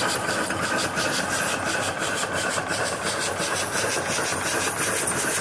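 Small steam engine running steadily with a fast, even chuffing beat, with steam hissing from the engine and boiler.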